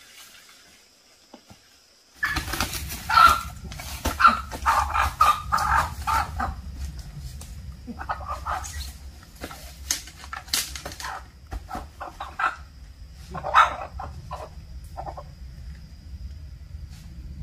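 Jungle chickens clucking and squawking in irregular bursts, with wing flapping, starting suddenly about two seconds in over a steady low rumble.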